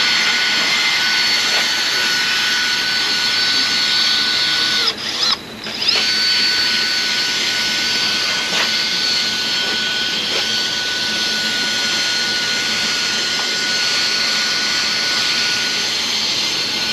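Electric power tool running with a steady high-pitched whine. It briefly cuts out about five seconds in, winding down, then starts up again.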